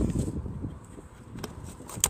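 Wind blowing on a phone microphone, with handling noise and a light click about one and a half seconds in.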